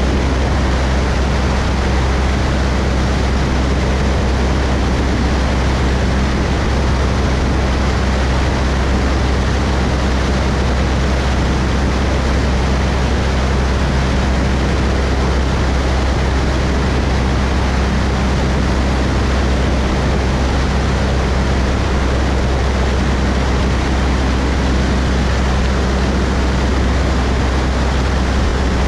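Cessna 172's piston engine and propeller running steadily in flight: a constant low drone under a broad rushing noise, with no change in power.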